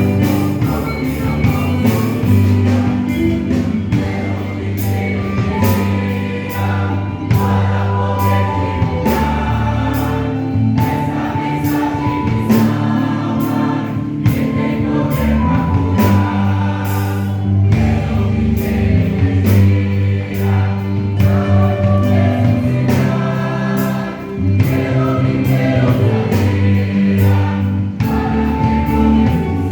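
Choir singing a gospel song with instrumental accompaniment, held sung notes over a steady bass line and a regular drum beat.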